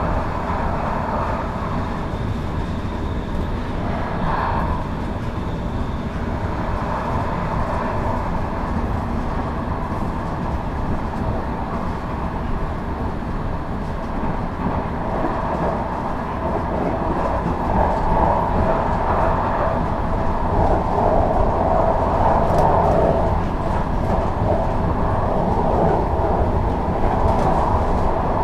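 Duewag/Kiepe B80D light-rail car running along the track, heard from on board: a steady rolling and running noise that grows somewhat louder in the second half.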